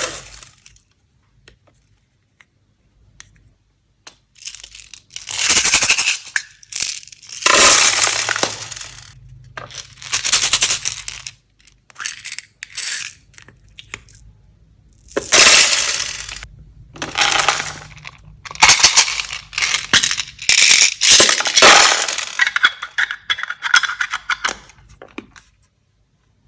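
Repeated bursts of rattling and rustling as slime-making materials are handled and poured, each burst lasting about one to two seconds with short pauses between them.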